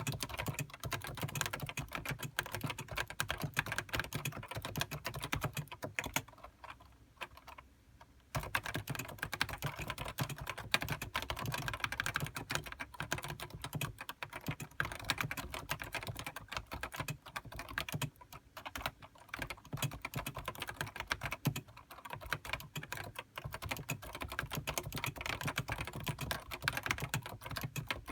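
Steady, fast typing on a Topre Realforce HiPro keyboard with electrostatic capacitive (Topre) switches: a dense stream of keystrokes, broken by a pause of about two seconds some six seconds in.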